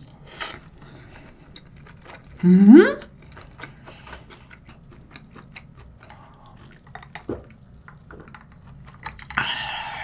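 Close-up eating sounds: soft chewing clicks, and a short vocal hum that rises sharply in pitch about two and a half seconds in. Sips of an iced drink from a glass follow.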